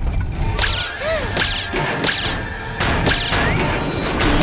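Cartoon sound effects: a series of quick whooshes and whip-like swishes with short sliding tones that rise and fall, over a steady low rumble.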